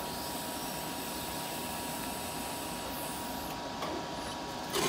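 DC TIG welding arc from a BlueArc 200STI inverter on low-pulse mode: a steady hiss with a thin steady tone, tapering off in the downslope and going out about three and a half seconds in, leaving a quieter steady hiss.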